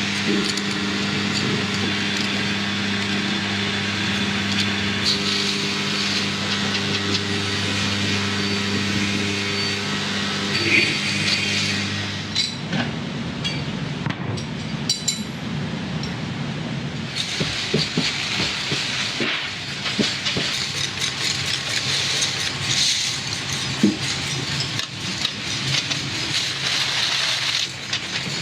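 Pencil-factory machinery running: a steady motor hum for about the first twelve seconds, then a change to a rattling, clattering machine noise with many irregular clicks and knocks.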